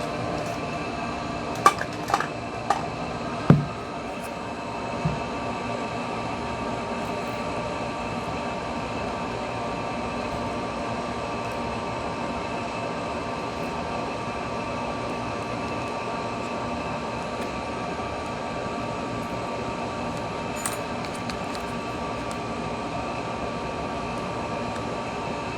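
Hot air rework station blowing steadily, with a light clinking of metal opening tools against the phone's glass several times in the first few seconds.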